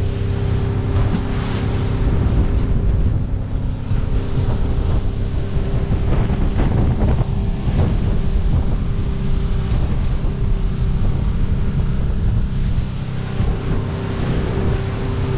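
A fishing boat running fast across open water: a steady engine drone under loud wind buffeting the microphone, with the hull splashing through the chop.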